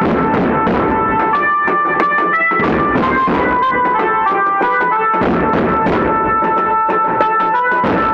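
Street band's bass drums and snare drums beaten together in a fast, loud rhythm, with a melody line playing over them.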